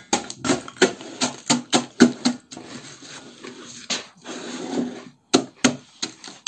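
Wooden masher pounding butter biscuits in a stainless steel saucepan: a run of knocks about three a second, crushing the biscuits into crumbs, with a softer stretch of grinding in the middle before the knocks start again.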